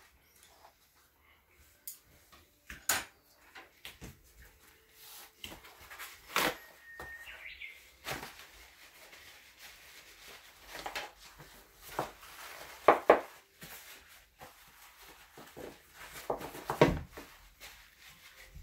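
Kitchen handling sounds: irregular clicks and knocks of utensils and containers being set down and moved, a dozen or so separate taps, the loudest a close pair about two-thirds of the way through.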